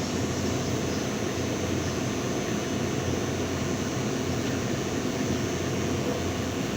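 Steady machine noise at a constant level: an even rushing sound with a low hum underneath and no change in speed.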